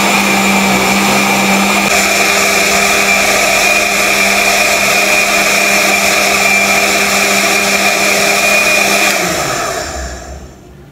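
Countertop blender running steadily at speed, puréeing cilantro in water, its motor tone shifting slightly about two seconds in; near the end it is switched off and winds down.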